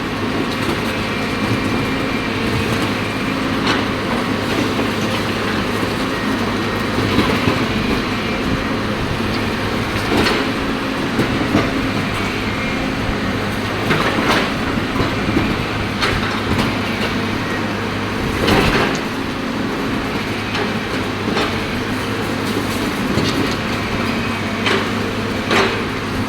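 Caterpillar excavator's diesel engine running steadily under load while it breaks up concrete, with occasional sharp knocks and scrapes of the bucket against the concrete every few seconds.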